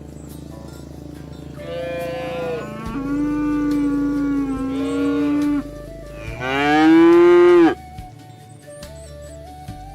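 Cattle mooing: long drawn-out moos, the last one the loudest, swelling and then cutting off sharply, over background music.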